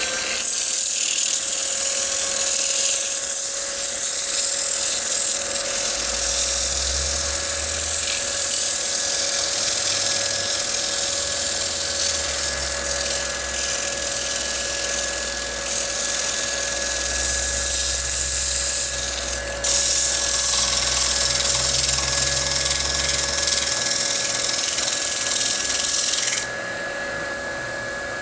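Wood lathe running with a steady motor whine at about 1200 RPM while 220-grit sandpaper is held against the spinning bowl, giving a loud, continuous hiss: a light sanding of the cured finish between coats. The sanding hiss breaks off briefly about two-thirds through and stops near the end, leaving the lathe whining on its own.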